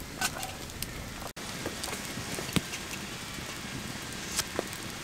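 Wood campfire crackling: a steady hiss with scattered sharp pops and snaps from the burning logs.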